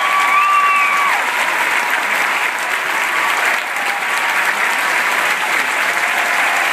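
Large theatre audience applauding and cheering, a dense steady clapping throughout. A long high held note rides over it until about a second in.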